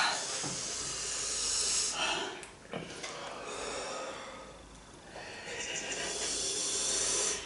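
Heavy, hissing breaths in and out through the mouth and hands, a few long breaths that fade away in the middle and build again near the end: a person panting to cool a mouth burning from raw hot chili peppers.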